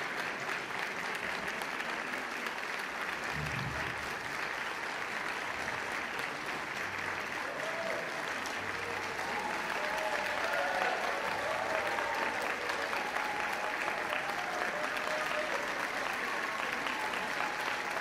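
Concert-hall audience applauding steadily, with a few voices calling out or cheering around the middle.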